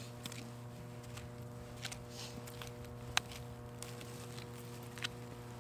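Gloved hands digging through loose soil and picking out tubers: scattered soft rustles and small clicks, the sharpest about three seconds in, over a steady low hum.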